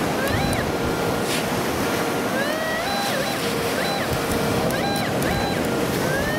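Whites TDI pulse-induction metal detector sounding through its speaker as the coil is swept: a steady tone broken by a series of tones that rise and fall in pitch as targets pass under the coil. Waves wash in the background.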